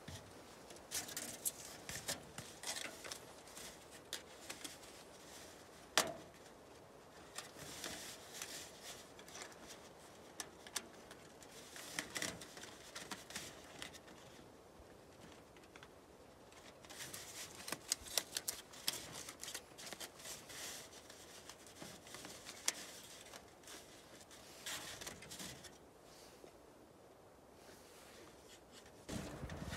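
Corrugated aluminium flexible chimney pipe crinkling and rattling as it is handled, in irregular bursts of crackling, with one sharp click about six seconds in.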